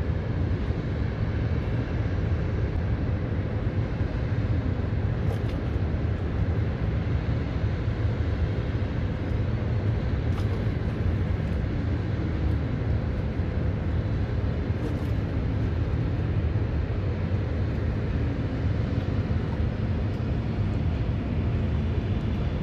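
Steady low rumble with a faint constant hum, the drone of distant machinery, unchanging throughout.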